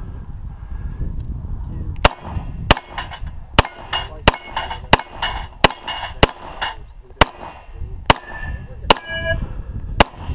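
Pistol fired in quick succession at a steel plate rack, about a dozen shots starting some two seconds in, many of them followed by the short ringing clang of a struck steel plate.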